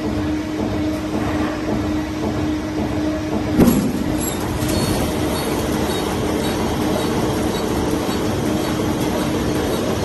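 Automatic roll-to-sheet paper cutting machine for A3/A4 printing and decal paper running steadily, a constant mechanical rumble with a steady hum, and one sharp knock about three and a half seconds in.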